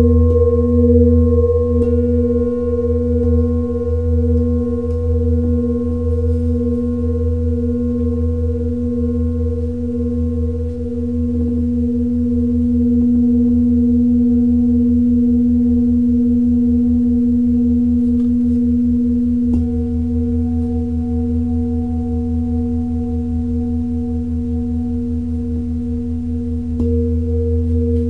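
Large metal singing bowl played with a felt-padded mallet, ringing with a steady deep tone, an overtone an octave above and fainter higher tones. The tone wavers slowly at first, then evens out, and swells again near the end, over a low rumble.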